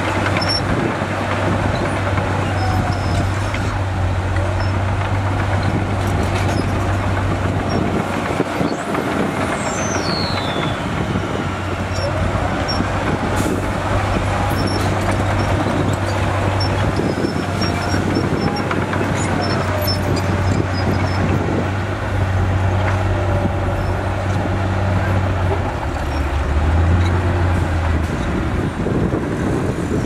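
Heavy diesel engines of a dump truck and a crawler bulldozer running in a steady drone while the truck's hydraulic tipper body raises to dump a load of dirt; the engine note shifts near the end.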